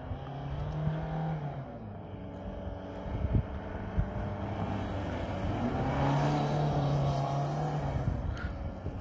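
Toyota Corolla's engine revving hard twice as the car drifts on loose dirt: a short rise and fall in the first second and a half, then a longer, higher rev from about five and a half seconds, with a rush of tyres scrabbling on the dirt during it. Two brief thumps midway.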